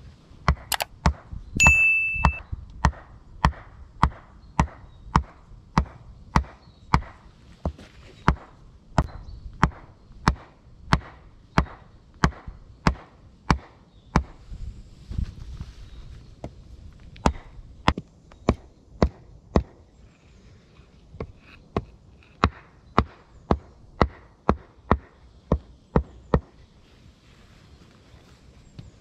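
A wooden mallet knocks wooden stakes into packed earth in a steady run of wood-on-wood blows, about one and a half a second, and stops near the end. A brief, loud, high whistle-like tone sounds about two seconds in.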